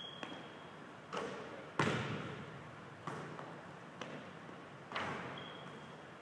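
A basketball bouncing on a hardwood gym floor: about six hits, roughly a second apart. Each hit echoes and fades slowly in the large empty gym.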